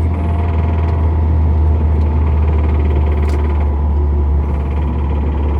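Honda Civic EP3's K20A2 four-cylinder engine running at a steady speed inside the cabin, a constant low drone with road and wind noise over it; by this point the engine has developed a rod knock.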